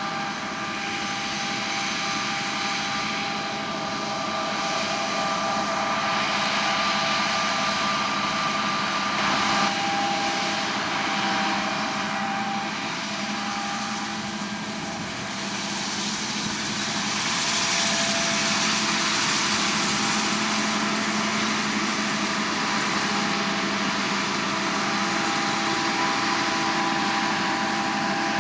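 Harvest machinery running steadily: engine hum with several steady whining tones over a broad rushing noise, swelling louder past the middle.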